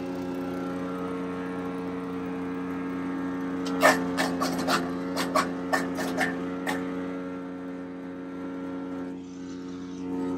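The small gasoline engine of a DK2 Power wood chipper runs steadily. About four seconds in comes a quick run of sharp cracks lasting some three seconds, as the chipper chops the weeds and stems fed into its hopper.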